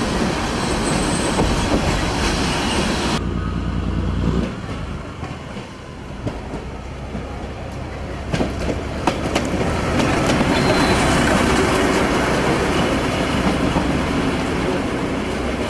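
Narrow-gauge diesel train running loudly, cut off abruptly about three seconds in. After a quieter stretch with a few sharp clicks, the diesel locomotive's engine and wheels grow louder as it approaches and pulls in.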